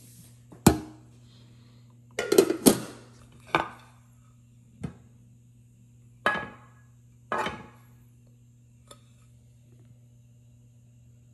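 Pots, pans and glass lids of a nonstick cookware set clinking and knocking as they are handled and set down: about seven separate knocks, with a quick cluster of three about two to three seconds in. A steady low hum runs underneath.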